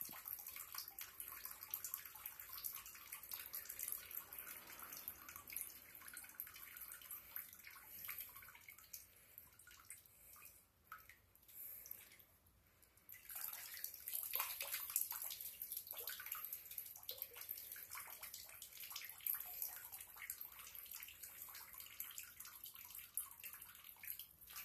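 A thin stream of water trickling and splashing into a bathtub. It drops away for a couple of seconds around eleven to thirteen seconds in, then comes back.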